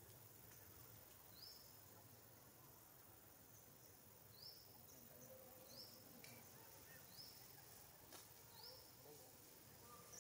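Near silence: a quiet outdoor background in which a faint, short, high-pitched rising chirp repeats about every second or so.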